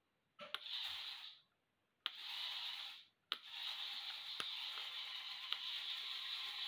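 Small 3D-printed Strandbeest walking robot running, its drive motors and plastic leg linkages whirring. It starts with a click about a third of a second in and stops after about a second. It starts again at about two seconds, cuts out for a moment near three seconds, then keeps running steadily.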